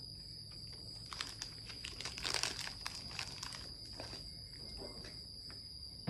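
Crinkly wrapper of a glazed curd-cheese bar rustling and crinkling in the hands, with scattered faint clicks, loudest about halfway through.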